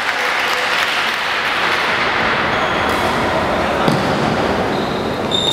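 Badminton play in a sports hall: a steady hubbub of voices, with a sharp racket-on-shuttlecock hit about four seconds in and a short high shoe squeak on the wooden court near the end.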